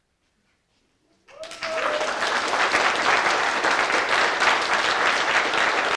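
A group of a few dozen people applauding, the clapping starting about a second in, swelling quickly and then holding steady before cutting off suddenly.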